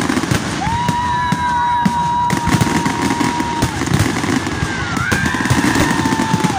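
Fireworks display: dense crackling and popping of bursting shells and sparks. A steady high whistle is held for about three seconds starting about half a second in, and another whistle falls and then levels off near the end.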